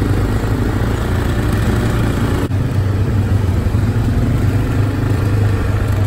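Quad bike (ATV) engine running steadily while being ridden at low speed, a continuous low drone.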